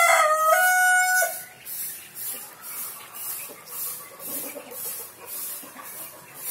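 A rooster crowing: one long crow that ends on a held, slightly higher note about a second in. After it there is a faint high-pitched pulsing about twice a second.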